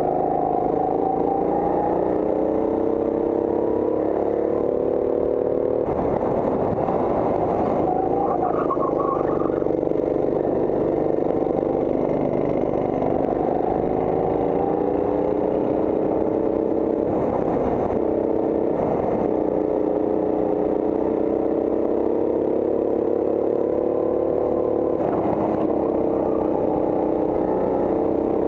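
Go-kart engine heard on board the kart, running hard under throttle, its pitch dropping and climbing again several times as the kart slows into corners and accelerates out. A few short bursts of noise break over the engine.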